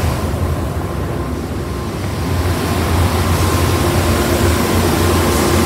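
Steady low mechanical rumble with an even hiss over it, and a faint steady hum coming in about four seconds in.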